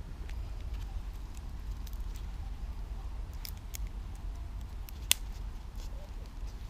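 Scattered small clicks and snaps, with one sharp crack about five seconds in, over a steady low rumble.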